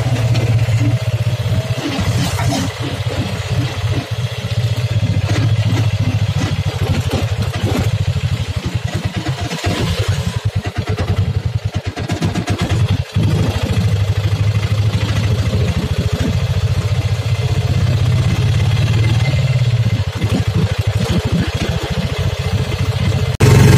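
Auto-rickshaw engine running steadily under way, heard from inside the cabin with road noise.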